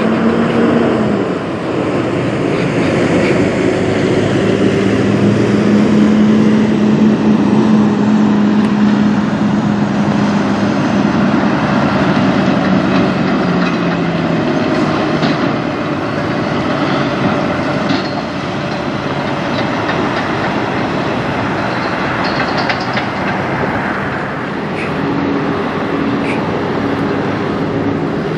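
Diesel engines of Kenworth semi-tractors running as the trucks roll slowly through the lot: a steady low engine note that fades out around halfway, with a second truck's engine coming in near the end.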